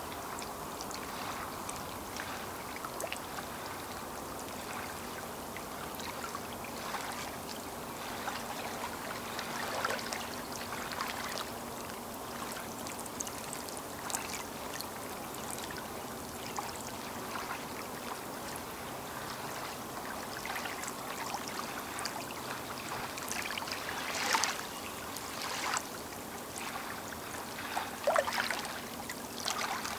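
Small lake waves lapping and splashing at the shore, with a few louder splashes near the end. A faint steady low hum runs underneath.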